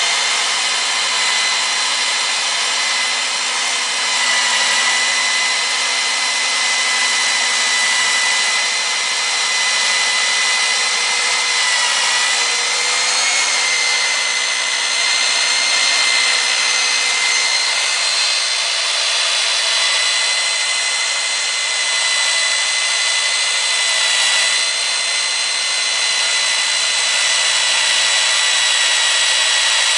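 Kor-It K804 hand-held core drill's 1500-watt motor running steadily, giving a high whine over a broad hiss.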